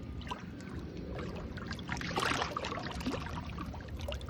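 Water sloshing and splashing around a crevalle jack held in the water, with a louder splash about two seconds in.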